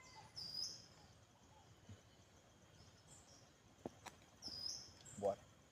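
Faint outdoor ambience with a few short, high bird chirps, twice, and some small clicks.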